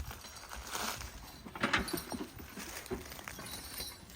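A mule team in harness moving a log wagon: trace chains and harness hardware clink and jingle among irregular hoof steps and knocks, the loudest cluster about two seconds in.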